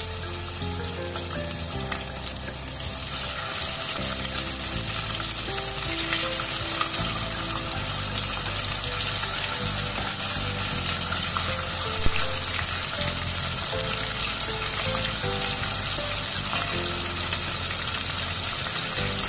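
Chicken pieces frying in hot oil with ginger slices in an enamelled cast-iron pot: a steady sizzle that fills out a few seconds in, with a single sharp click about twelve seconds in. Background music with a melody plays underneath.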